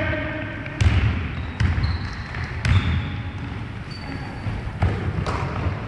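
A basketball bouncing on a hardwood gym floor, several heavy thumps about a second apart, with a few short high sneaker squeaks in between.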